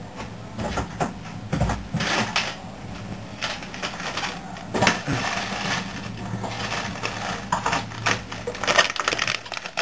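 Irregular clicks, knocks and rustling from handling food and packaging as meat is put into a rice cooker pot, over a steady low hum.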